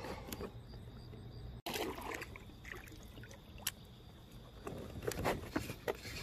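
Light water trickling and splashing around a kayak, with scattered small clicks and knocks.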